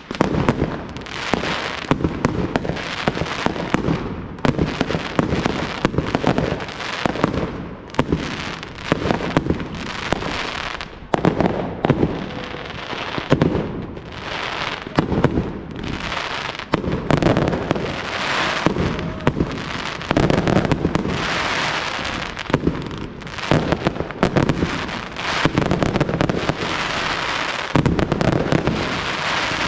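Professional fireworks display: aerial shells launching and bursting in quick succession, a dense, unbroken run of bangs that swells and eases in waves.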